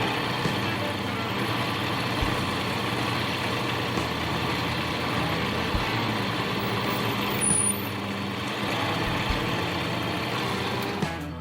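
Mini lathe running steadily, motor and gearing under way, while a carbide insert takes a 25-thousandths cut on a small plastic bushing. The sound drops off sharply near the end.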